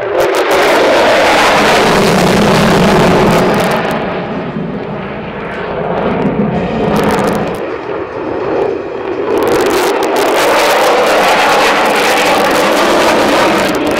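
Loud jet engine noise from an F-16 fighter flying a display pass. It starts suddenly, eases somewhat in the middle and grows loud again for the last few seconds.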